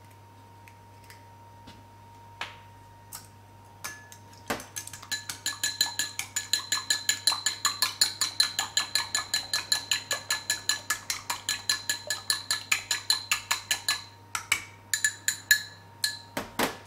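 Chopsticks beating an egg in a ceramic bowl: a fast, even clicking against the bowl, about five or six strokes a second, with a light ringing of the bowl. A few scattered taps come before the steady beating starts about five seconds in, and it breaks off into a few last taps near the end.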